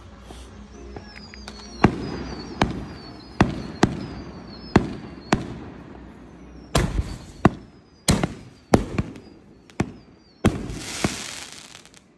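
Fireworks going off: a string of sharp bangs every half second to a second, with high whistles sliding down in pitch between them. A longer hissing, crackling burst comes near the end.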